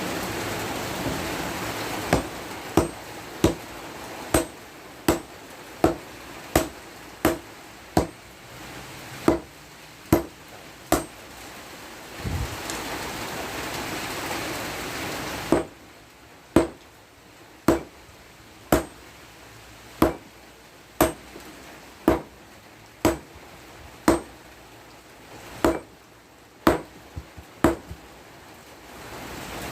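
Hammer blows on hot steel, a tiller blade being forged into a machete: sharp ringing strikes at a steady pace of roughly one a second, with a pause of a few seconds near the middle. A steady hiss runs under the first half and stops abruptly about halfway through.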